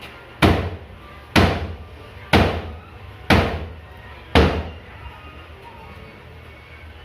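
Five heavy blows struck on a broken cabinet as it is knocked apart, about one a second, each ringing briefly before dying away.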